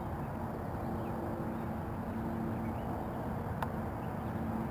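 Outdoor background noise: a steady low rumble with a faint hum that comes and goes, and a single sharp click about three and a half seconds in.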